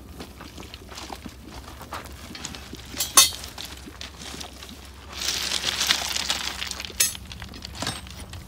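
Thermite rail-welding charge burning in its crucible: scattered crackles and metallic clinks, with one sharp clink about three seconds in. From about five seconds in, a hissing rush lasts a second and a half as the molten steel taps down into the mould around the rail joint.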